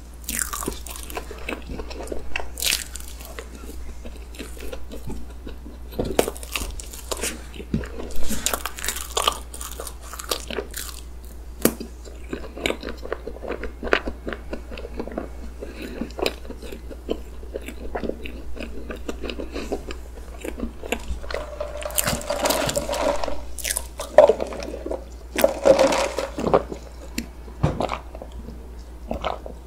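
Close-miked eating of chocolate layer cake with whipped cream: irregular spoon-scooping, biting and moist chewing sounds, a little crunch from crisp bits in the cake, with a few louder mouth sounds about two-thirds of the way in.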